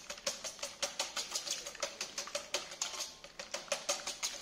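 Wire whisk beating runny cake batter by hand in a stainless steel bowl: quick, even clicks of the wires against the steel, about six strokes a second.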